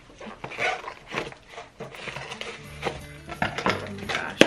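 Wrapping paper rustling and crinkling as a wrapped gift is opened by hand, with a sharp snap near the end, over background music with a stepping bass line.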